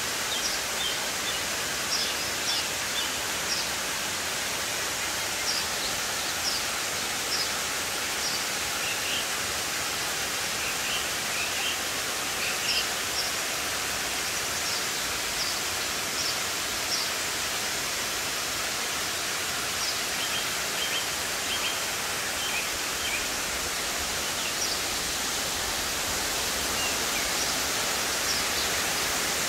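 Steady rush of a mountain waterfall and stream falling over rock, with short bird chirps every few seconds.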